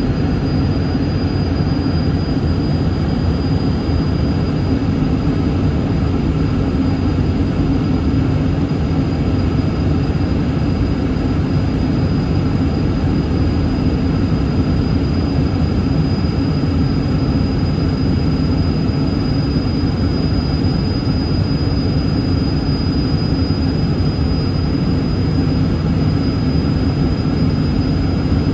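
Steady cabin noise inside a Yakovlev Yak-40 in flight: the even drone of its three rear-mounted Ivchenko AI-25 turbofans, with a thin high whine held on one pitch.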